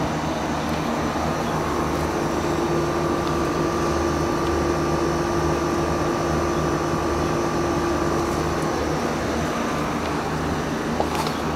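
Meeting MD50D 18 kW air-to-water heat pump outdoor unit running: a steady hum from its compressor and twin fans, with a steady tone over it that fades about nine seconds in. A brief click near the end.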